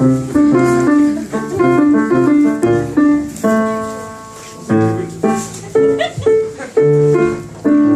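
Live band music without singing: keyboard chords in short rhythmic phrases over a bass line.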